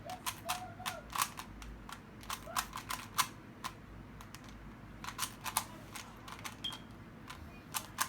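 A Rubik's cube's plastic layers being twisted quickly during a solve: runs of sharp clicks and clacks, with a pause of about a second a little before the middle.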